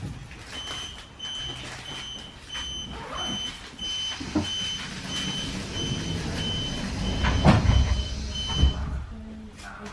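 Door-closing warning beeps inside an EN71 electric multiple unit: a fast series of short high beeps, about two a second, with two heavy thuds near the end as the sliding doors shut before departure.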